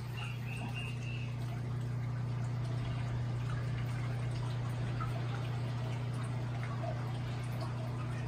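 JBJ 45-gallon saltwater reef aquarium running: a steady low hum from its pumps, with water trickling and splashing over the circulation.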